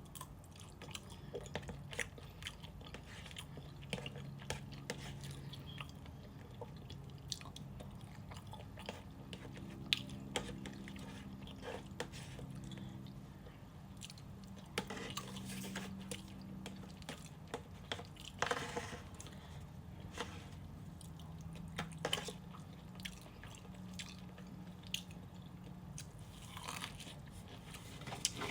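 A person chewing and biting food close to the microphone, with scattered small sharp clicks and mouth sounds throughout.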